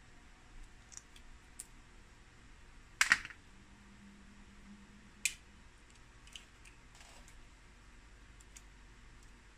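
Boiled crab shell cracking and snapping as it is broken and peeled apart by hand: a few scattered crisp clicks, the loudest a quick double crack about three seconds in and another sharp one about two seconds later.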